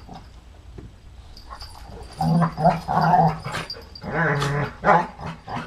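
A Rhodesian Ridgeback and a small dog play-fighting, growling and whining. The calls start about two seconds in, and the loudest, shrillest one comes about four seconds in.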